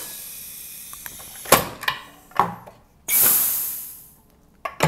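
SodaStream Enso soda maker: a faint fading hiss and two clicks as the top is pressed. About three seconds in comes a loud hiss of CO2 gas venting, dying away over about a second, as the carbonation bottle is released.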